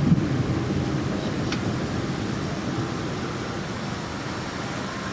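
Steady low rumble and air-conditioning hum inside a vehicle, with a single short click about a second and a half in.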